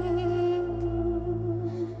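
Live Armenian folk music with duduk accompaniment: one long, steady held note over a low sustained drone.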